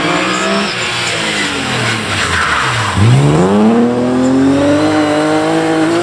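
BMW E36 rally car's engine at high revs as the car slides through a turn on asphalt, with tyre squeal and skidding in the middle. The engine note falls, drops sharply about three seconds in, then climbs steadily as the car accelerates away.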